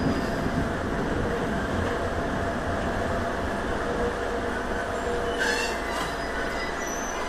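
205 series electric train running on the rails, heard from the driver's cab: a steady rumble of motors and wheels. A brief hiss comes about five and a half seconds in.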